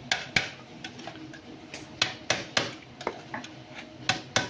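A run of irregular, sharp metallic taps and clicks from empty tin cans being handled and worked on, about ten in all.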